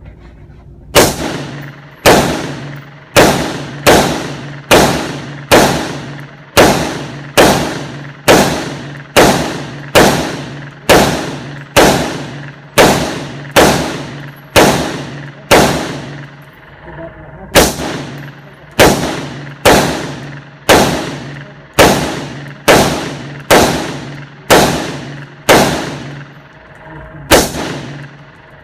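Single gunshots fired at a slow, steady pace, about one a second: some two dozen shots, each with a sharp crack and a short echoing tail. There is a brief pause about two-thirds of the way through and another near the end.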